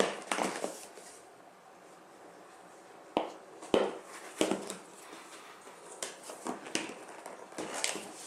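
Unboxing handling of a robot vacuum's cardboard box and packing: rustling with a string of sharp knocks and taps, the loudest a few seconds in.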